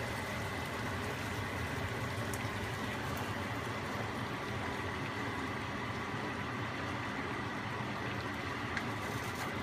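Pot of pork in red chile sauce simmering on the stove, with a steady bubbling and a few faint small pops.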